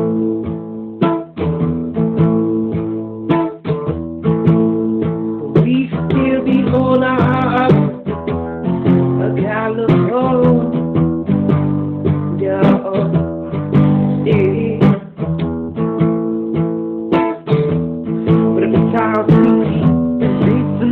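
Acoustic guitar strumming chords in a steady rhythm, with a wavering melody line over it from about six seconds in.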